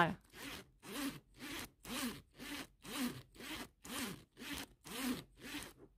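Metal zipper on a Lumiliu handbag being worked in a run of short zips, about two a second.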